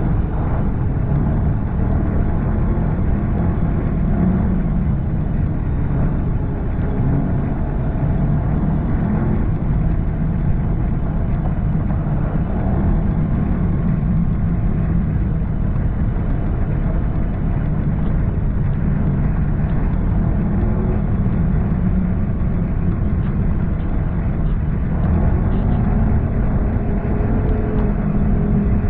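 Snowmobile engine running steadily under way, its pitch drifting up and down with the throttle and rising a little near the end, over a steady rushing noise.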